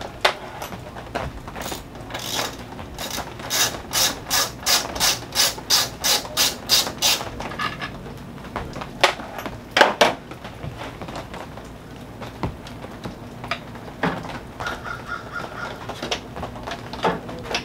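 Hand socket ratchet clicking in a steady run of about three strokes a second while grille fasteners are turned, followed by scattered tool clicks and a couple of louder metal knocks about ten seconds in.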